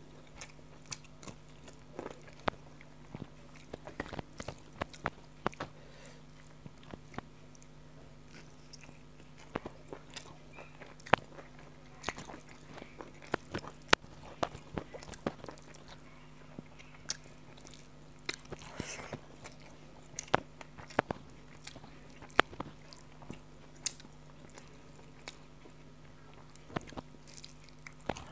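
Close-miked eating sounds: a person chewing rice and chicken curry eaten by hand, with frequent sharp, wet mouth clicks and smacks at irregular intervals. A faint, low, steady hum runs underneath.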